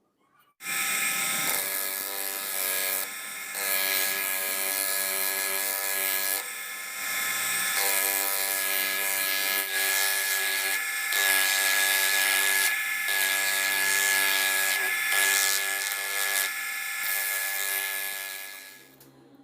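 Electric grinder running steadily with a high whine and a hiss, grinding the steel of a leaf-spring blade, with a few short breaks. It starts suddenly about half a second in and winds down near the end.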